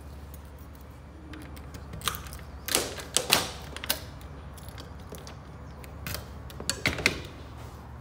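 Scattered sharp clicks and knocks, bunched about two, three and seven seconds in, over a steady low hum.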